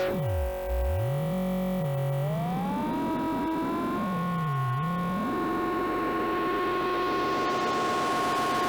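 Software synthesizer patch being shaped live with macro controls: a pitched electronic tone whose low layer swoops down and back up, stepping up in pitch about two to three seconds in. A hiss of noise swells in over the second half.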